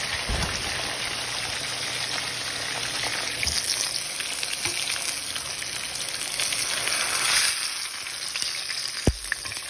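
T-bone steak and pork chops frying in hot oil in skillets, a steady crackling sizzle. One sharp click near the end.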